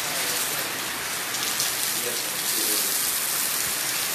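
Heavy rain falling steadily, a dense even hiss, with faint voices talking underneath.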